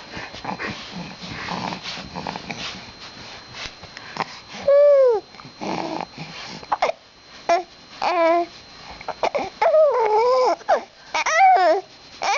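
Baby babbling and squealing: a quieter, rustly start, then from about five seconds in a string of high, arching vocal squeals that come closer together near the end.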